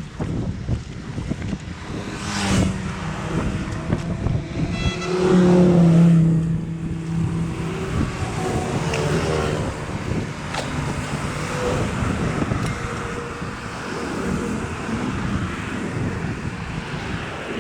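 Wind buffeting the microphone over a low outdoor rumble, with a pitched hum about five seconds in that lasts a couple of seconds and fades.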